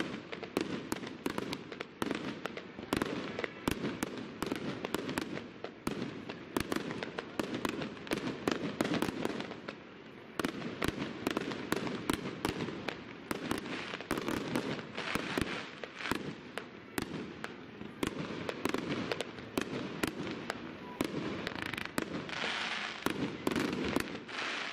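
Fireworks display: aerial shells launching and bursting in quick succession, many sharp bangs a second over a continuous din that never lets up.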